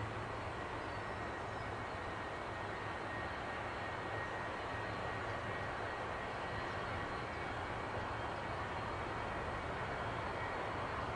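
Boeing 757 rolling slowly on the runway with only its left jet engine running, the other shut down after a bird strike: a steady, even engine noise with a faint high whine, growing slightly louder near the end.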